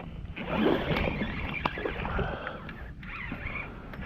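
Rustling, scraping and short clicks of a hooked bass being brought in and handled aboard a fishing kayak, loudest about half a second in.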